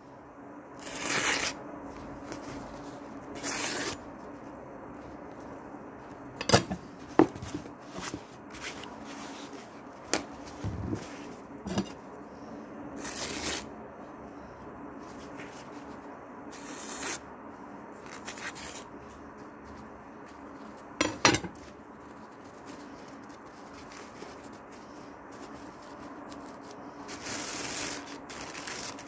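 Paper towel and toilet paper rustling as they are handled and sliced with a sharp knife: a handful of short, crisp swishes, with a few sharp clicks in between, over a faint steady hum.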